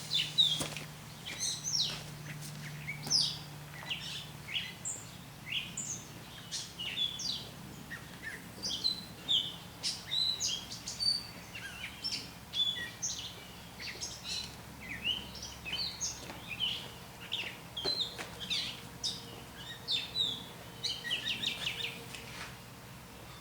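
Several birds chirping and singing, a quick, steady stream of short high calls, with a faint low hum for the first few seconds and a few light clicks.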